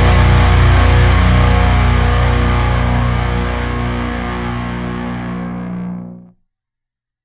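Heavy metal recording ending on a sustained, distorted electric guitar chord with heavy bass, ringing out and fading for about six seconds before cutting off to silence.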